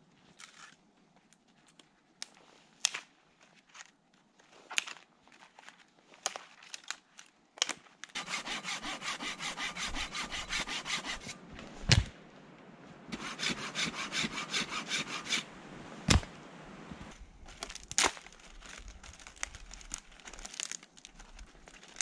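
A hand saw cutting through a wooden branch in two runs of quick back-and-forth strokes, with a few loud sharp cracks of wood between and after them. Scattered small snaps and knocks come before the sawing.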